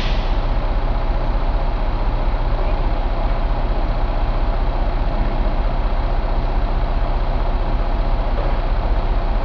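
International DT466B inline-six turbo diesel engine idling steadily.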